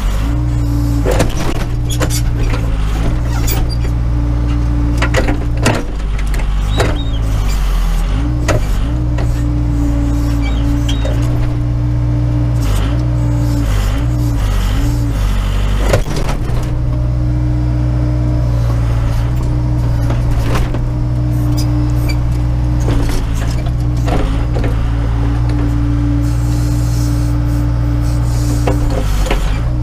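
Case 580 Super K backhoe's diesel engine running steadily under hydraulic load while the backhoe digs. Its pitch dips and wavers now and then as the controls are worked. Occasional sharp clunks and scrapes come from the bucket and boom working frozen ground, the loudest about sixteen seconds in.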